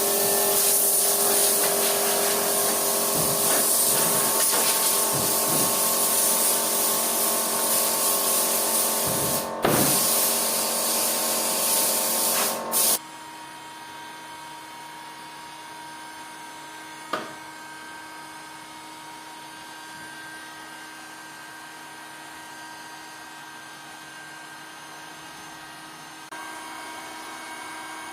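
A small electric power tool runs with a steady motor whine and a strong airy hiss, then is switched off abruptly about thirteen seconds in. After that only a faint steady hum remains, with a single sharp click partway through.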